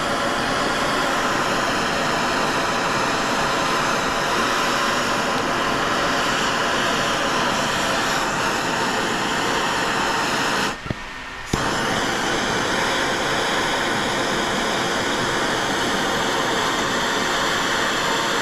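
Steady hiss and roar of a torch flame heating a brass sprinkler fitting, breaking off briefly about eleven seconds in before running on.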